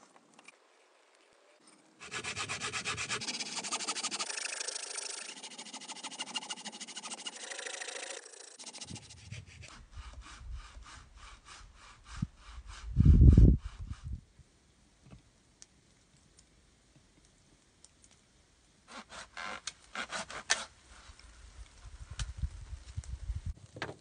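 A pruning saw cutting through a wooden log post in runs of quick back-and-forth strokes, stopping and starting. About 13 seconds in there is a loud, low rush lasting about a second.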